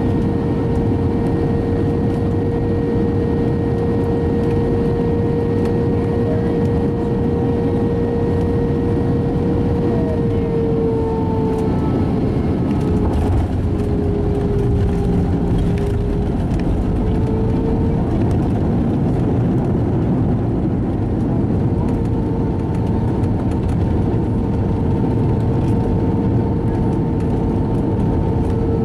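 Airbus A320 cabin noise through landing: a steady rushing of engines and airflow with a jet-engine whine that drops in pitch about eleven seconds in and rises again a few seconds later, as thrust comes back for the flare and touchdown. By the end the airliner is rolling on the runway with its ground spoilers up.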